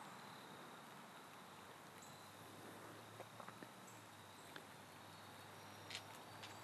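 Near silence: faint steady hiss with a low hum, and a few faint ticks about halfway through and once near the end.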